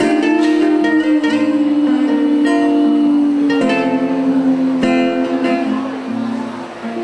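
Acoustic music played on plucked string instruments, guitar and ukulele, moving through a series of held notes and growing quieter near the end.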